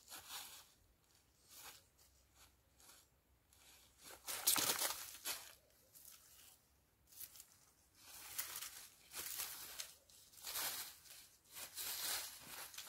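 Irregular bursts of rustling and scraping from a thin throwing cord being handled and pulled over a tree branch. The loudest burst comes about four and a half seconds in, with several more near the end.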